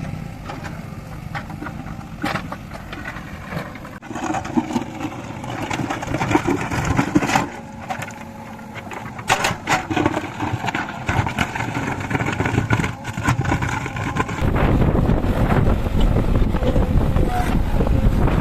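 JCB 3DX backhoe loader's diesel engine running while working, with several sharp clanks through the middle. About three-quarters of the way in, a deeper, louder rumble takes over.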